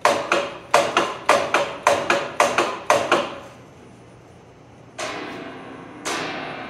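Thin 1/16-inch sheet steel clanging as it goes through a plate-rolling machine: about ten sharp, ringing metallic bangs in quick succession over the first three seconds, then three softer ringing clangs about a second apart as the rolled sheet is handled.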